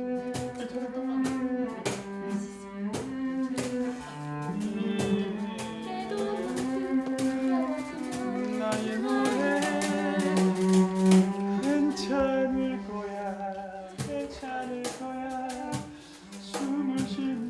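Instrumental music with bowed strings holding long notes over light percussion hits.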